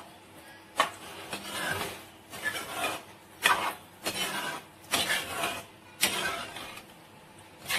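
Steel ladle stirring a thick yoghurt-and-coconut gravy in a metal pan. There are repeated scraping and sloshing strokes, about one a second, with a few sharp clicks of the ladle against the pan.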